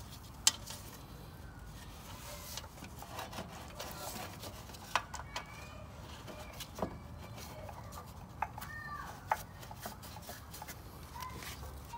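Scattered light metal clicks and taps as engine-mounting bolts are fitted by hand into a steel lawn mower deck, with a few faint bird calls in the background.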